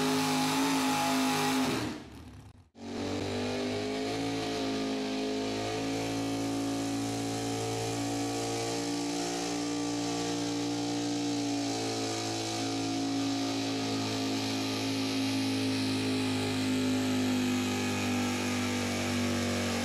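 Pulling trucks' engines running at full throttle while dragging a weight-transfer sled. The first engine's pitch falls under the load and drops out about two seconds in; a second truck's engine then runs flat out for the rest, its pitch slowly sagging as the sled bears down.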